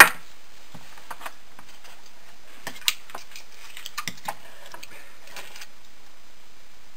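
Scattered light clicks and taps of small tools being handled on a workbench. A sharp click comes right at the start and another about three seconds in, with fainter ticks between.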